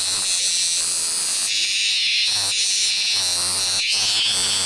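Borneo rainforest chorus of insects and frogs: a dense, steady, high-pitched buzzing and trilling that never lets up.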